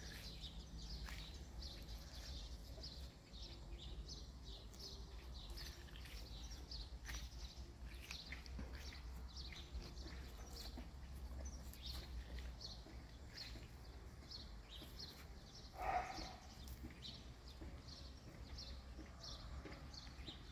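Small birds chirping over and over in short high notes, with one brief, louder and lower call about sixteen seconds in, over a steady low rumble.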